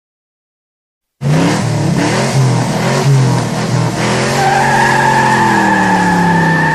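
Car engine revving hard as the car accelerates, starting abruptly about a second in, its pitch rising and falling. Partway through, a steady high tyre squeal joins in.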